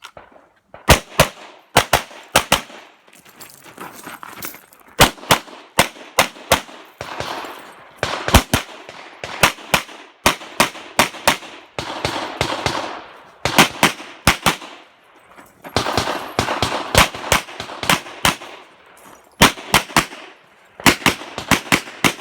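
Handgun fired rapidly through a timed practical-shooting stage: quick strings of two to four shots, with short pauses between groups, over about twenty seconds.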